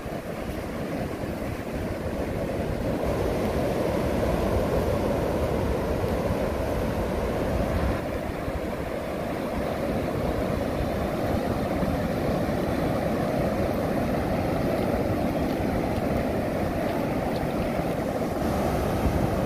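Ocean surf breaking and washing on the shore, a steady rushing noise that grows louder over the first few seconds, with wind rumbling on the microphone.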